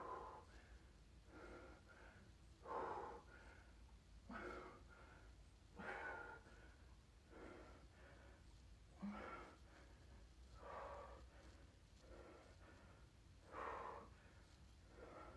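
A man's faint, hard breathing during repeated couch dips: a short exhale about every second and a half, a few of them stronger puffs.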